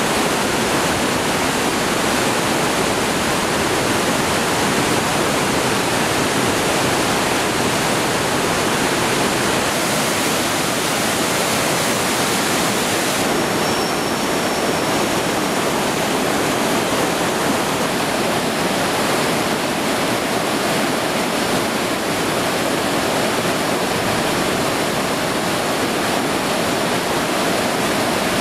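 Loud, steady rush of white water pouring over a river weir and churning down a concrete fish pass.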